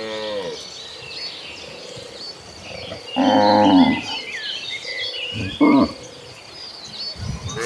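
Cattle mooing: a low call tails off at the start, a loud moo comes about three seconds in, a short one follows a couple of seconds later, and another begins near the end. Faint high chirps run throughout.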